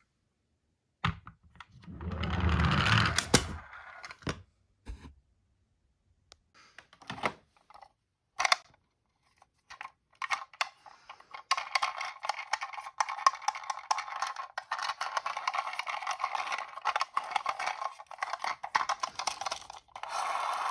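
Small hard clicks, knocks and a rustle from handling a Tomica toy ambulance, then a dense, continuous clicking rattle through the second half.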